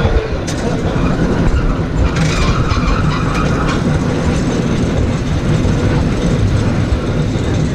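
San Francisco cable car rolling downhill, heard from aboard: a steady, loud rumble, with a sharp click about half a second in and a rasping hiss from about two to three and a half seconds in.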